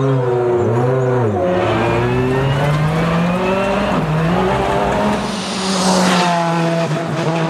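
World rally car's turbocharged engine under hard acceleration, its pitch rising and dipping through gear changes and then holding at steady high revs. About six seconds in there is a brief rush of noise over the engine.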